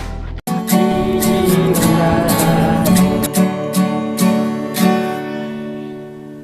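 Music with strummed acoustic guitar: a new piece starts just under half a second in, chords struck about twice a second, then a held chord that fades out.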